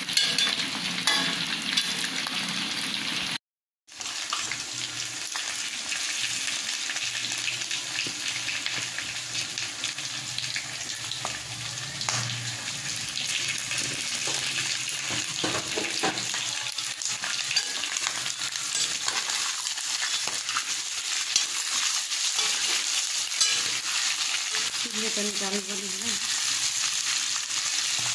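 Turkey meat frying in oil in a wok, sizzling steadily while a metal spatula stirs and scrapes it around the pan. The sound cuts out briefly about three and a half seconds in.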